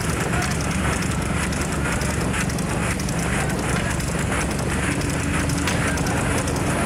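Steady rush of wind on the microphone and road noise from a vehicle moving at speed, with a continuous low rumble underneath.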